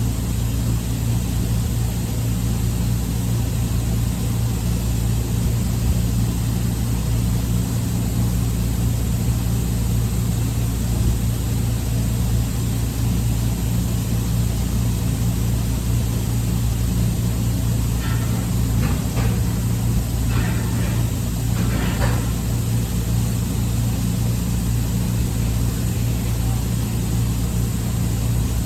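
Steady low hum of running machinery, holding one even pitch throughout, with faint distant voices briefly about two-thirds of the way in.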